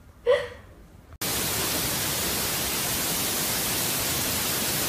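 A steady, even hiss like static starts abruptly just over a second in and holds at one level. Before it there is one short sound.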